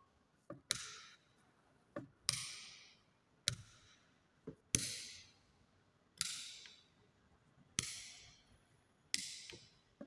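Plastic wall rocker light switches being flicked on and off, a sharp click about every one and a half seconds, each with a short fading hiss after it.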